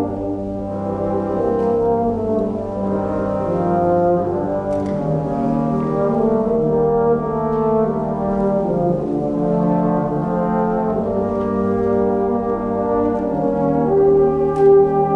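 A wind band playing sustained, full brass chords, with horns and trombones prominent, moving slowly from chord to chord.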